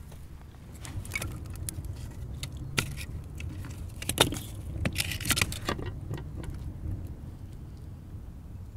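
Wood fire burning in an adobe rocket stove, crackling and snapping over a low rumble, with a cluster of sharp clicks and knocks in the middle as a piece is pushed into the firebox.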